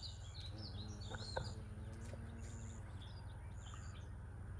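Songbirds chirping and whistling repeatedly, over a steady low rumble.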